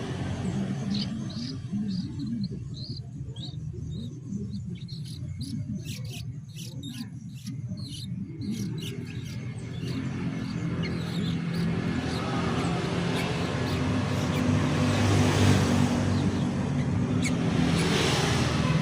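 Yellow-vented bulbul chick giving short, high begging chirps as it is hand-fed, repeated through about the first half. Under them runs a steady low hum that grows louder in the second half.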